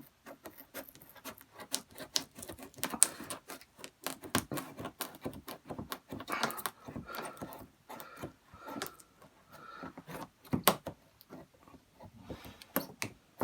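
A cardboard toy box and its packaging being opened by hand: an irregular run of rustling, scraping and sharp clicks of cardboard and plastic, with a few louder knocks about 3 seconds in and near 11 seconds.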